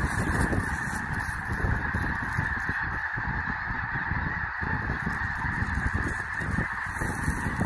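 A huge flock of snow geese calling in flight, a dense, continuous din of overlapping honks with no single call standing out.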